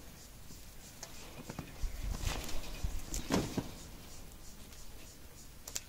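Faint scattered rustling and a few soft knocks from young vervet monkeys playing and climbing, with some low bumps about two to three and a half seconds in.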